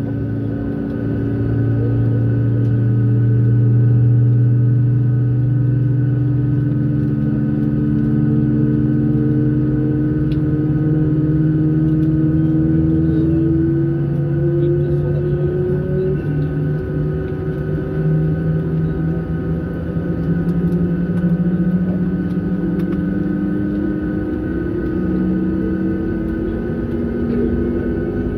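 Boeing 737 MAX 8's CFM LEAP-1B jet engines running at low taxi power, heard from inside the passenger cabin: a steady drone whose tones slowly rise in pitch.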